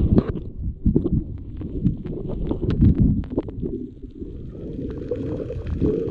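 Underwater sound heard through a GoPro's waterproof housing: a low, muffled rush of moving water with scattered clicks and knocks from a float line and spear shaft being handled.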